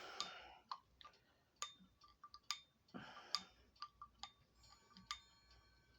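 Faint, sharp clicks about once a second, with small metallic clinks as Revere clock chime rods are handled and fitted into a grandfather clock base. Near the end the rods ring faintly with several steady tones.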